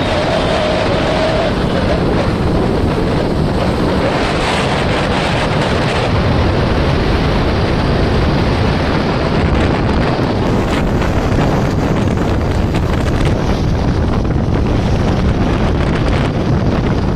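Steady rush of wind buffeting the microphone while riding along a road, over the low rumble of the moving vehicle.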